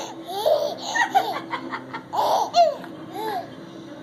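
Baby laughing in high-pitched bursts, three times, the last one short and softer.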